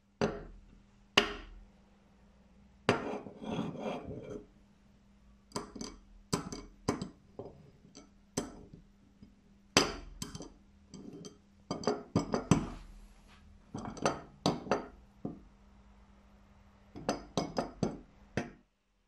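A round pot magnet being set down, slid and knocked against a cast-aluminium adjustable wrench, making irregular sharp metallic clacks and clinks with a short clatter about three seconds in. It is a magnet test of the wrench's metal: the aluminium body does not attract it, and only the iron adjusting screw does.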